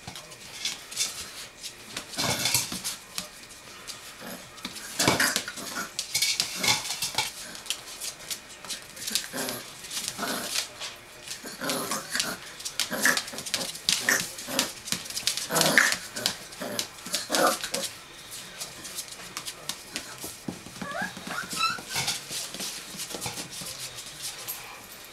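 Young presa canario puppies making small barks, growls and whimpers while they play, in short irregular bursts with brief scuffling clicks between them.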